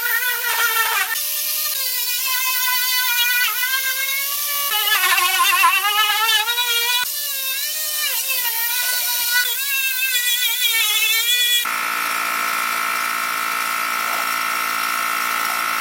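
Background music with a wavering, vibrato-laden melody. About three-quarters of the way through it cuts off suddenly, giving way to the steady high-pitched whine of a small electric power tool's motor running.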